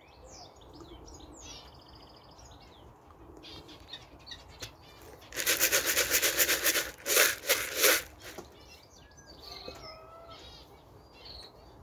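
A young Birmingham Roller pigeon's wings flapping rapidly in two bursts, about halfway through, as it takes off from the loft landing board. Faint bird chirping can be heard around it.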